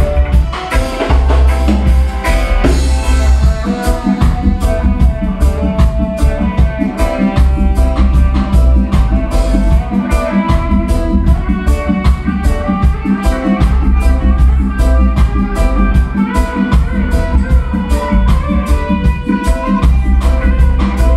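Live reggae band playing an instrumental passage: electric guitar over bass guitar and drum kit with a steady beat.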